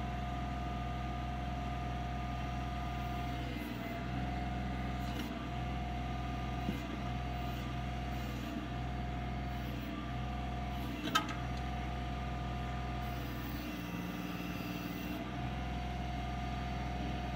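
Kioti CK25 tractor's diesel engine running steadily. Its note dips briefly again and again, and sags for about a second near the end, as the KB2465 backhoe's hydraulics are worked and take load. A sharp metallic clank about 11 seconds in.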